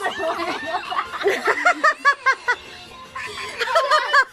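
A woman laughing in quick short bursts, a run of them about a second in and another near the end.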